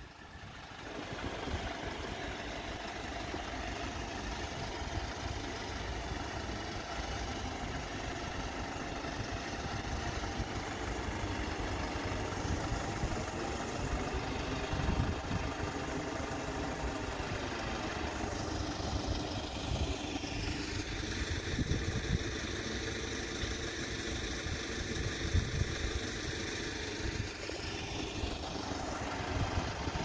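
Kia Bongo III truck's diesel engine idling steadily, growing louder about a second in.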